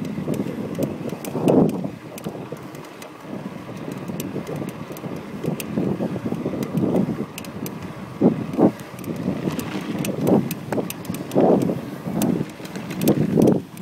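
Cannondale Flash 29er mountain bike creaking over and over as it is ridden, mixed with wind on the microphone and rolling noise. The owner suspects the front hub, the wheel or the Lefty fork.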